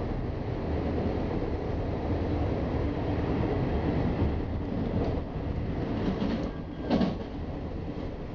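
Ferrovie Nord commuter train running at speed, heard from inside the carriage: a steady rumble of wheels on track, with a brief louder clatter about seven seconds in.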